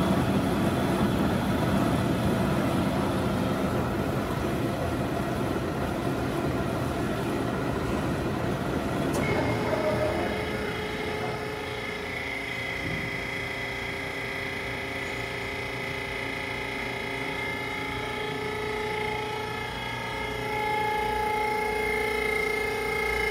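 W.F. Wells F-15 horizontal band saw running, its blade cutting through metal stock with a dense, noisy cutting sound. About nine seconds in, the sound changes to a steadier, quieter whine with several held tones.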